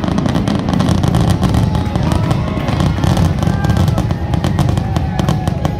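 A fireworks barrage: aerial shells bursting one after another as rapid cracks and bangs over a continuous rumble.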